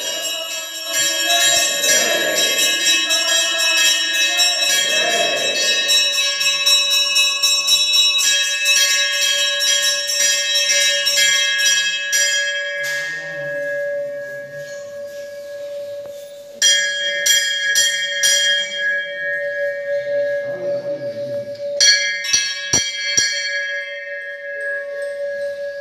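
Hanging brass temple bells rung by hand again and again, a fast, dense clanging of several bells with one steady hum under it. The ringing thins out about halfway through and starts up strongly again a few seconds later.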